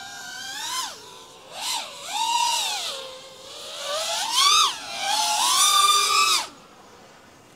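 FPV quadcopter's brushless motors whining, the pitch swooping up and down with each punch and chop of the throttle. About six and a half seconds in the throttle drops off and the whine falls away to a low level.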